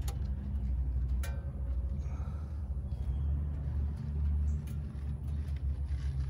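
Low, steady rumble of an idling vehicle engine, heard from beneath the truck, with a couple of light clicks.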